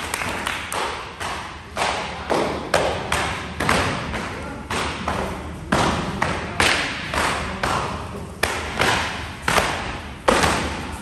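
Jiu-jitsu belts whipped against the back of a newly promoted student's gi as he runs the belt gauntlet: sharp slaps and thuds, irregular, about one and a half a second.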